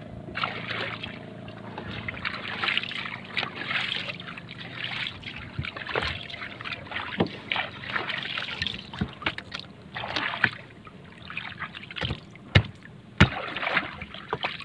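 Water sloshing and splashing around a small fishing boat in irregular rushes, with a faint low hum early on and several sharp knocks on the wooden deck.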